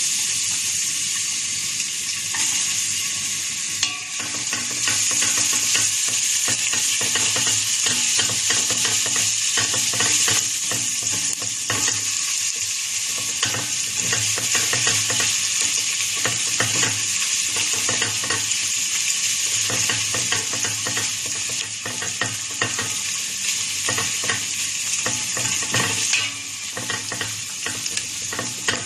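Minced garlic sizzling in hot cooking oil in a stainless steel pot, stirred with a spatula in short strokes. The sizzle eases a little near the end.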